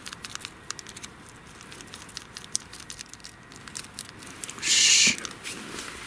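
Faint scattered ticks and light rustling as steak seasoning is shaken from a small foil spice packet onto a raw steak on a foam tray. About five seconds in comes one short, loud rustling rasp as gear is handled and pulled open.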